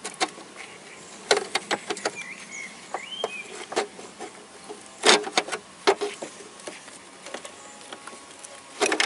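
Metal wiper-linkage parts clinking and knocking as they are handled and fitted into a car's cowl, in clusters about a second in, around five to six seconds in, and again near the end.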